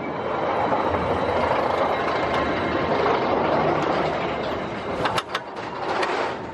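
Expedition Everest roller coaster train rolling along its steel track, heard from the front seat: a steady rushing rumble, with a few sharp clicks about five seconds in.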